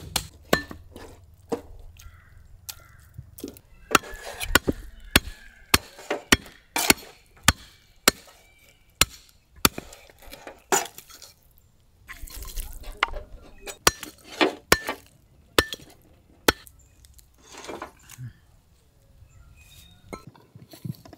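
Cleavers chopping fried goat meat and bone on a wooden log chopping block: a run of sharp, irregular chops, thickest in the middle.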